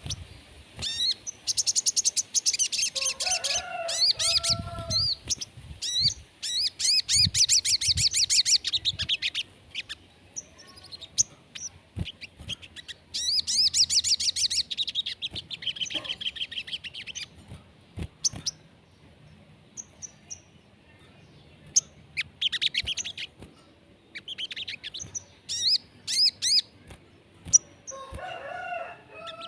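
Sogon songbird singing: rapid high trills of quickly repeated chirps in bursts of one to three seconds, with short pauses and scattered single chirps between them.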